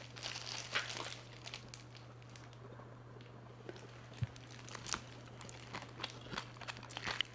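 Crinkling and crunching of crispy fried chicken being handled and eaten, in scattered bursts that are busiest in the first second and again near the end, over a faint steady hum.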